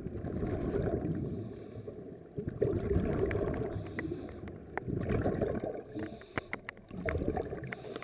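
Scuba regulator breathing underwater: about four breaths, each a rumbling burst of exhaled bubbles followed by a short hissing inhalation. Scattered sharp clicks come in between.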